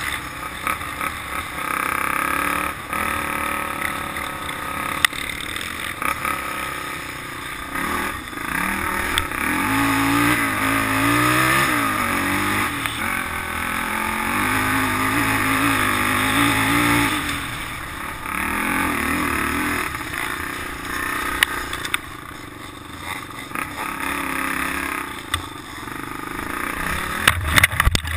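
Polaris Outlaw 500 quad's single-cylinder four-stroke engine running under way, its revs rising and falling as the rider works the throttle. A few sharp knocks near the end.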